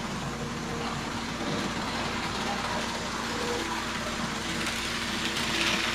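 Tyco Power Torque HO model locomotive running on its track, a steady small-motor hum with wheel and gear noise.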